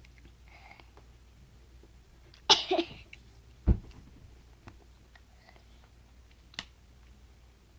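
A single sharp sneeze, lasting about half a second, about two and a half seconds in. About a second later comes a short low thump, and there is a light click near the end.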